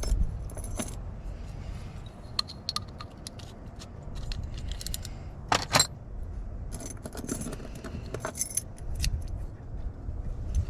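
Small metal clicks, taps and jingles of a lock cylinder's pins, springs and keys being handled during a rekey, with a sharp double click about five and a half seconds in, the loudest sound.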